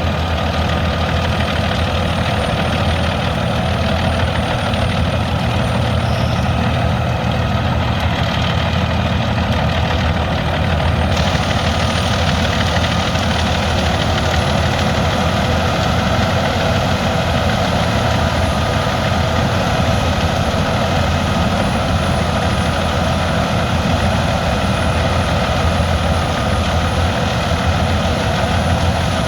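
Albach 700 hp biomass wood chipper running steadily, a deep engine sound under a wide rushing noise, with a faint high whine that drifts slowly in pitch. About eleven seconds in the noise turns brighter and stays that way.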